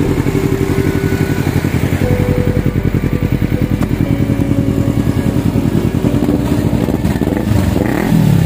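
Kawasaki Z250 parallel-twin engine idling through a Leo Vince carbon slip-on exhaust, a steady rapid pulsing burble. Near the end the throttle is blipped once, a short rise and fall in revs.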